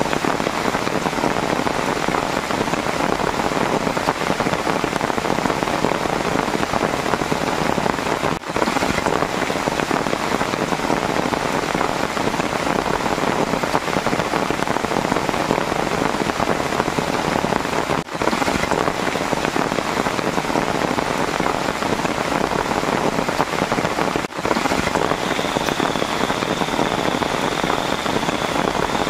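Heavy rain falling steadily: a dense, even hiss that dips briefly three times.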